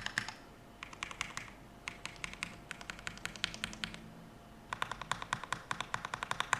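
Typing on a Redragon K631 mechanical keyboard with lightly lubed Huano Red linear switches, PBT XDA-profile keycaps and foam dampening inside. The keystrokes come in short bursts, with a brief pause and then a fast run in the last two seconds.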